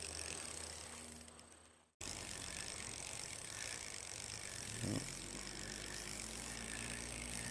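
Spinning reel being cranked to retrieve line, a steady mechanical whirring. It fades and cuts off about two seconds in, then resumes.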